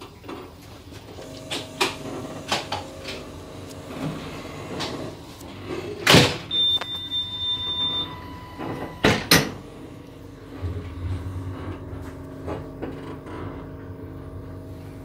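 Automatic sliding door between passenger train cars, working with two loud bangs about six and nine seconds in and a short high beep between them. Lighter knocks from the gangway sound over the steady running hum of the train.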